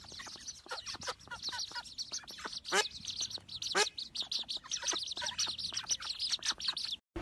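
A flock of ducklings peeping constantly, many high, rapid calls overlapping, with a couple of louder single calls standing out about three and four seconds in. The sound cuts off abruptly just before the end.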